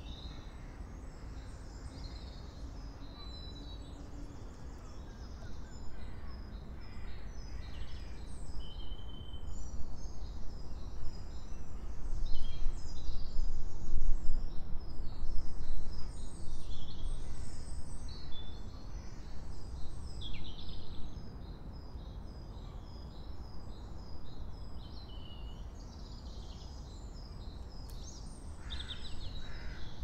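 Blustery wind rumbling in gusts, strongest in the middle, with many small birds chirping and calling throughout and a louder bird call near the end.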